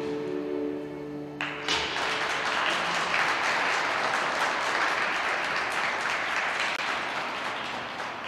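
Skating-program music holding a final chord, cut off about a second and a half in, then audience applause in the rink that eases off near the end.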